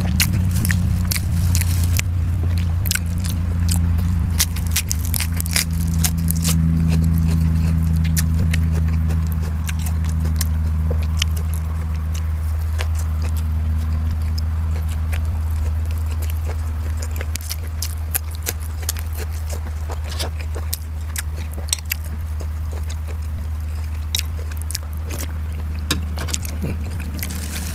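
Close-miked chewing and wet mouth clicks of someone eating, with many short sharp clicks scattered throughout. Underneath runs a steady low hum that slowly fades.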